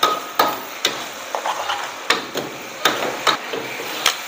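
Metal ladle and spatula clanking against a wok while noodles are stir-fried: sharp strikes roughly every half second over a steady frying sizzle.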